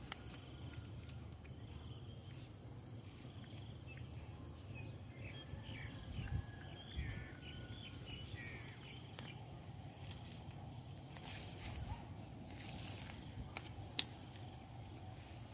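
An insect trills in a steady, high-pitched drone that runs in long stretches with brief gaps. Faint chirps come in between about five and eight seconds in, and one sharp click sounds near the end.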